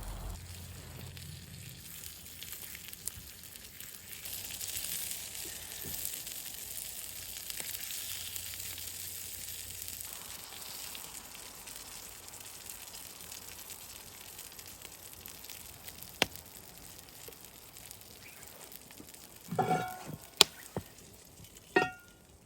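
Food sizzling in a cast iron skillet over an open wood fire: a steady hiss that swells for a few seconds and then fades. A few sharp clicks and short ringing clinks come near the end.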